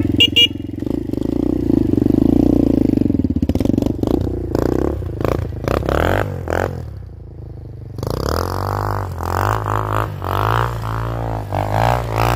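Kuba Black Cat motorcycle engine revving hard as the rear wheel spins in snow, its pitch rising and falling again and again with the throttle, with a brief lull about seven seconds in.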